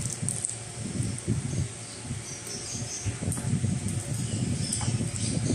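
Close-up chewing and wet mouth sounds of someone eating saucy cooked shrimp, in irregular bursts, with a few small clicks as shrimp are bitten and pulled apart by hand.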